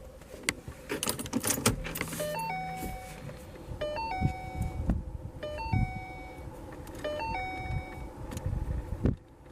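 Car keys jingle and click in the ignition. Then the Ford Mustang's dashboard warning chime sounds four times, about every second and a half, each a quick stepped run of tones ending on a held note, with the key on and the engine off.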